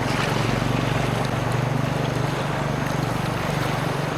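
Steady rushing of river water, an even noise with a strong low rumble.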